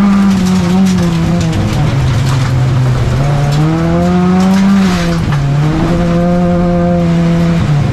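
Volvo 245 folkrace car's engine heard from inside the stripped cabin, revving hard while racing on a slippery track. Its pitch climbs, drops sharply about two seconds in, climbs again and drops around five seconds, then holds steadier at a lower pitch, over a layer of tyre and road noise.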